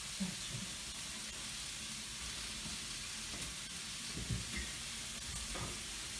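Strips of shoulder meat sizzling steadily in a hot frying pan as the wet meat gives off its water, with a couple of soft knocks about four and five and a half seconds in.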